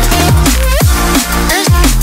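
Electronic dance music with a fast beat: deep bass drum hits that drop in pitch about twice a second under busy high percussion and a gliding synth melody.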